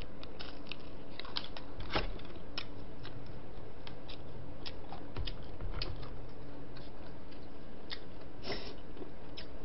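Close-up mukbang eating sounds: a person chewing while chopsticks pick through a plastic takeout tray of spicy braised seafood and bean sprouts, heard as scattered small clicks and crunches over a steady background hiss, with a louder click about two seconds in.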